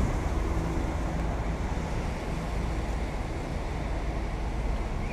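Wind buffeting the microphone of a bicycle-mounted action camera while riding, a steady low rumble.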